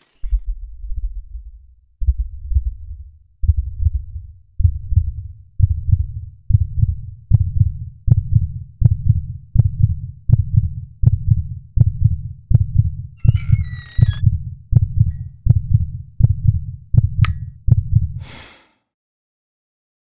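Deep, muffled thumps that speed up steadily, from about two seconds apart to nearly two a second, and grow louder. A brief warbling high-pitched sound breaks in about two-thirds of the way through, then a short hiss, and the thumping cuts off near the end.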